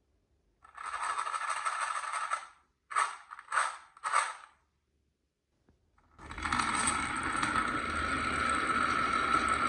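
Glass marbles rolling down a wooden marble-run track: a steady rolling run, then three short clattering bursts about a second apart, then a continuous rolling rumble from about six seconds in.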